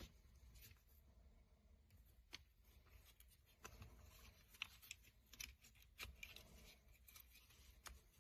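Near silence with a faint low room rumble and about ten small, scattered clicks, like light handling of small hard objects.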